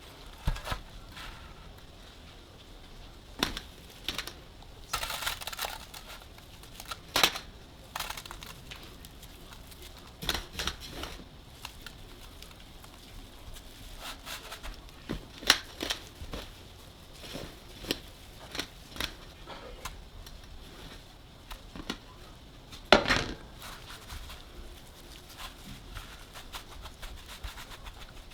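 Hands working dry shredded kadayıf pastry: crinkly rustling and tearing, with scattered light knocks against a dish.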